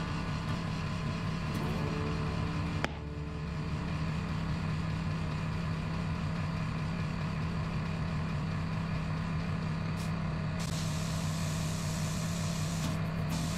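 Compressed air hissing into a new 195/45R17 tyre on a tyre changer, inflating it to over 3 kg/cm² to seat the beads, over a steady low hum. A sharp click comes about three seconds in, and the hiss turns brighter near the end.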